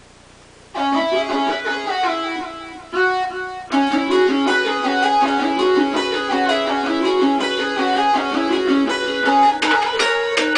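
Guitar and small synthesizer keyboard playing a picked, melodic tune together. The notes come in about a second in after a short pause, break off briefly around a third of the way through, then run on steadily.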